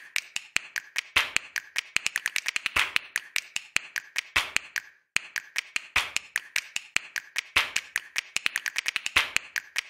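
Rapid, sharp clicks and taps in an uneven rhythm, like a dry percussion-only backing track with no melody, breaking off briefly about five seconds in.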